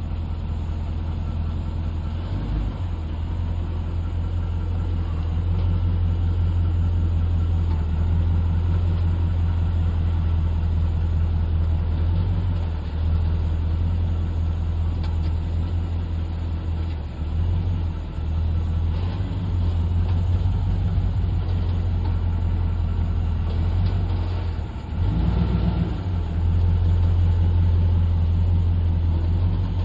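2021 Dodge Durango R/T AWD making a steady low grinding rumble, easing briefly a few times.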